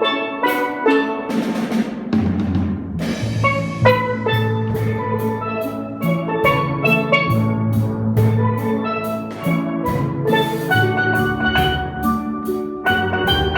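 Steel band playing: steelpans ring out a melody over deep bass notes, with a drum kit keeping a steady beat. The bass comes in about two seconds in, along with a cymbal crash.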